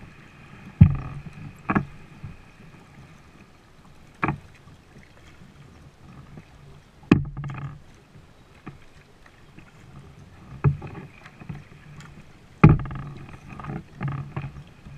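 Kayak being paddled: about six sharp knocks from the paddle against the plastic hull at uneven intervals, with water sloshing and swishing between strokes.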